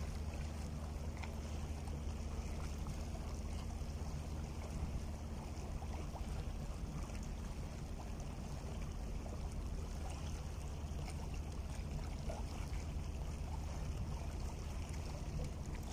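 Small sea waves washing and lapping against the rocks at the shoreline, over a steady low rumble.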